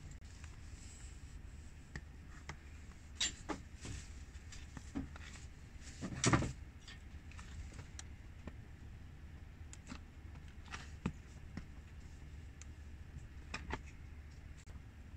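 Shoes stepping on a hard tiled floor: irregular taps and knocks, the loudest a thump about six seconds in, over a low steady hum.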